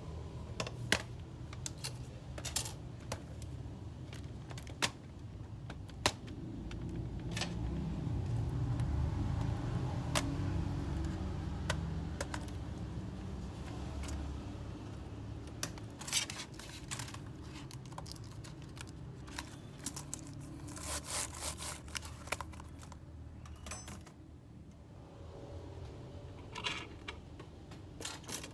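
Scattered sharp clicks and light metallic taps from small screws, a screwdriver and a laptop's case being handled during disassembly, over a low background rumble.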